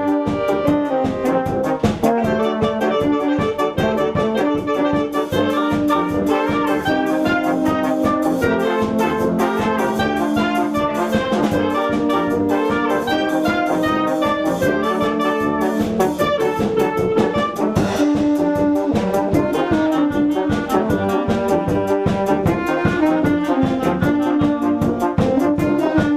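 Municipal brass band playing: trombones and trumpets carry sustained melody and harmony lines over a steady rhythmic beat.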